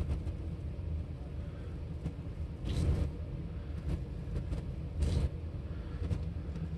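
Green masking tape being peeled slowly off a painted guitar headstock, with two short peeling rips about three and five seconds in. A steady low rumble runs underneath.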